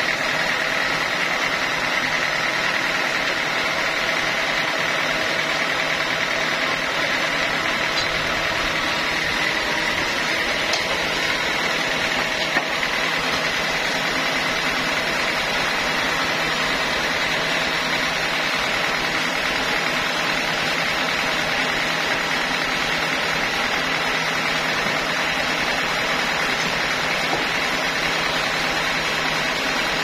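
Band sawmill running steadily, a constant mechanical drone with a faint high tone and no change in level.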